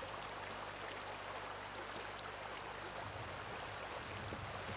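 Faint, steady rush of a shallow river, with a low steady hum underneath.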